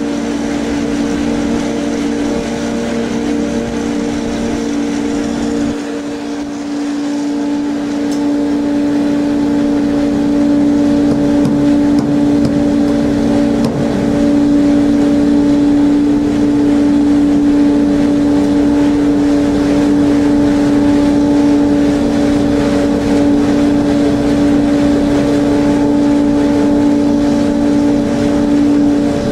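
Walinga Ultra-Lite feed trailer's High Output Auger system running as it unloads bulk feed: a loud, steady machine hum with a brief dip about six seconds in.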